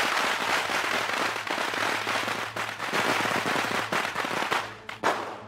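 A long string of red Chinese firecrackers going off in a rapid, dense crackle of bangs. It thins out near the end, and one last sharp bang comes just before the close.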